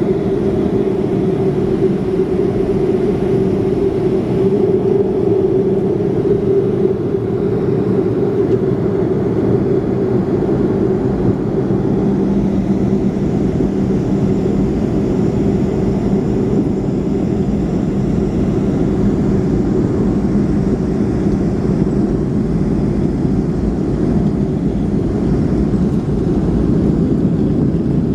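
Steady drone of a Boeing 737's jet engines and airflow heard from inside the passenger cabin, with a constant low hum running under the rushing noise.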